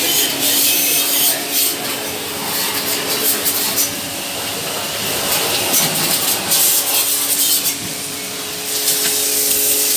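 Pressure washer jet spraying water onto a car's wheel, wheel arch and underbody to blast off caked dirt: a loud, steady hiss that swells and dips as the jet moves, over the constant hum of the washer's pump motor.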